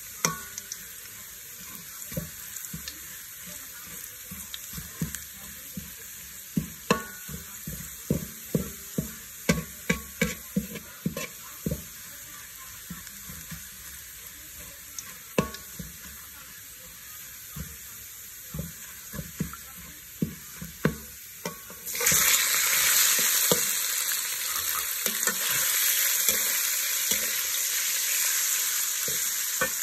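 Minced garlic frying gently in oil in a steel wok, with a metal wok spatula scraping and clinking against the pan in quick strokes. About two-thirds through, raw pork pieces go into the hot oil and a loud sizzle starts suddenly and carries on.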